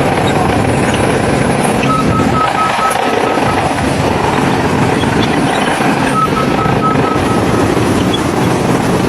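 Heavy earthmoving machinery running steadily, with a reversing alarm sounding two short runs of rapid beeps, about two seconds in and again about six seconds in.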